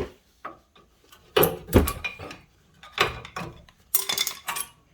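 Metal clanking and scraping as a steel-backed front brake pad is worked out of its caliper bracket, in three short bouts of clatter.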